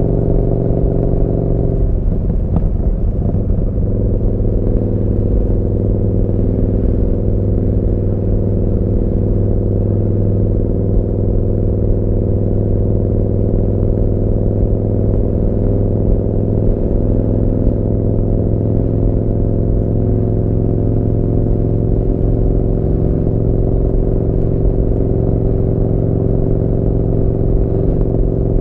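Yamaha Bolt's air-cooled V-twin running through a Vance & Hines slip-on exhaust while riding, a steady low exhaust note. Its pitch shifts briefly about two seconds in, then holds nearly level at a cruising speed.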